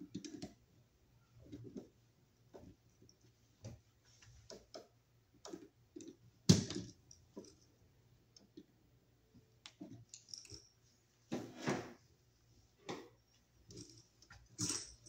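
Needle-nose pliers and copper wire being worked by hand while a wire loop is bent for a receptacle's screw terminal: scattered small clicks and taps, a louder knock about six and a half seconds in, and a longer rustle around eleven to twelve seconds.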